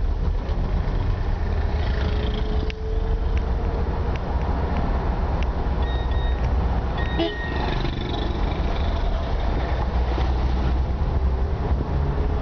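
Steady rumble of a moving road vehicle heard from on board: engine and road noise. A short, high beep like a horn sounds about halfway through.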